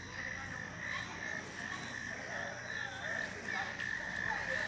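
Frogs calling in a night chorus: a steady, pulsing trill held at one pitch throughout.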